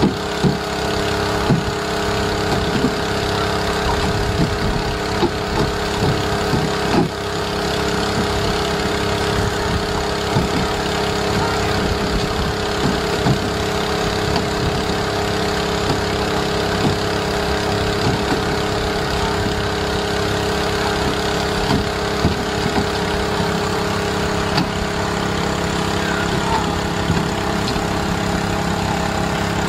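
Fishing boat's inboard engine running steadily at low revs. Frequent short, irregular knocks come over it, from fish landing on the wooden deck.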